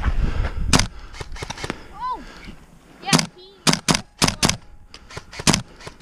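Airsoft guns firing: a single sharp shot about a second in, then a quick irregular run of about six sharp snaps from about three seconds in.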